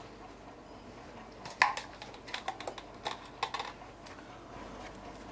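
A quick run of light, sharp clicks and taps from small utensils being handled, a metal tea-ball strainer and a plastic cup, about a dozen over two seconds; the first is the loudest.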